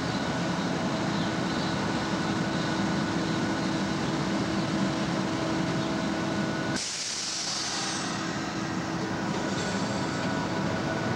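SEPTA electric multiple-unit commuter train cars moving slowly past, with a steady electrical hum of several fixed whining tones. About seven seconds in, a sudden hiss of air breaks out and fades over a second or two, and part of the hum cuts off.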